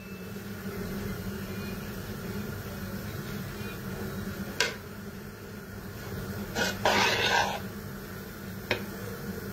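A spoon stirring a crumbly rfiss mixture in a large bowl: a few light clicks of the spoon against the bowl and a short scraping rustle about seven seconds in, over a steady low hum.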